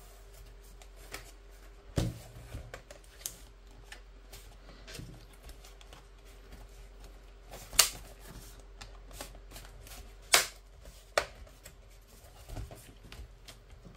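Hands handling a plastic laptop on a wooden table, turning it over and opening it. Scattered clicks and knocks, the sharpest about eight and ten seconds in.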